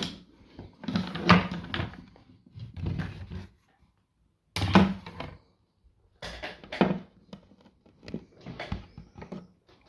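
Handling noise from a disassembled airsoft rifle and its gearbox: irregular clusters of clicks, knocks and rubbing as the parts are turned over and moved about.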